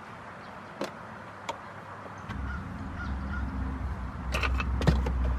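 Scattered clicks and knocks of hand work on plastic trim and screws. About two seconds in, a low steady rumble comes in underneath, and a cluster of louder knocks follows near the end.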